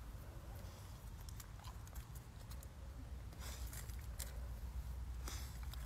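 Faint outdoor ambience: a low wind rumble on the microphone with a few short crunches on gravel, the clearest a little past three seconds, just past four seconds and near the end.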